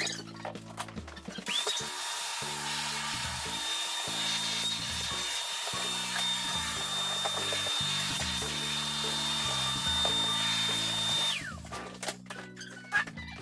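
Power drill running steadily at a constant high whine for about ten seconds, then winding down as it stops, over background music.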